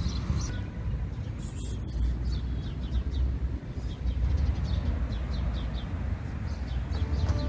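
Steady low outdoor rumble with small birds chirping over it, the chirps short and high, coming thick and fast from about two and a half seconds in.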